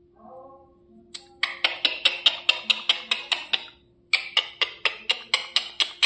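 Rapid sharp clicking or tapping, about five strikes a second, in two runs of roughly two seconds each with a short pause between.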